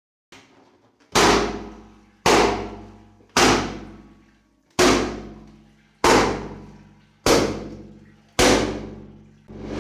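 A run of sharp, evenly spaced bangs, about one every 1.2 seconds, each dying away over about a second over a steady low tone; near the end a sound swells up and cuts off.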